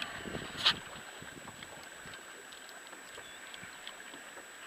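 Water lapping around a small fishing boat with light wind, faint small ticks scattered through. A single sharp knock about a second in is the loudest sound.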